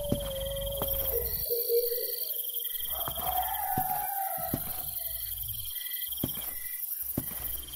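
Night insects, crickets, chirping: steady high trills that switch on and off, plus a short chirp repeating about twice a second. Under them a lower drawn-out tone slides slowly in pitch, and there are scattered faint clicks.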